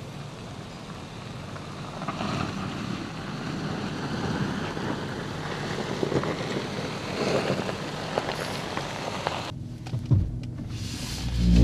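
Volkswagen Touareg SUV driving down a rutted gravel track: tyres crunching and crackling over loose gravel, the engine running low underneath, with wind noise on the microphone. The outdoor noise drops away sharply about two seconds before the end, and music starts right at the end.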